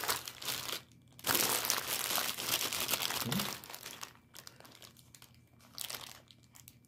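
Fast-food wrapping crinkling and rustling as it is handled, loud and continuous for most of the first four seconds with a short break about a second in, then only faint scattered rustles.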